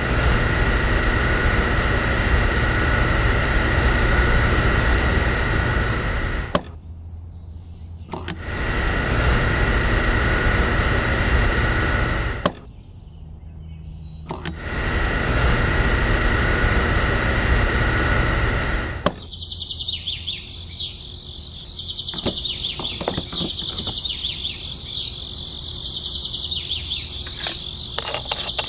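Small electric mini water pump motor running with a steady whine in three runs of about four to six seconds each, each starting and stopping abruptly. After that, insects chirring steadily with a few light clicks.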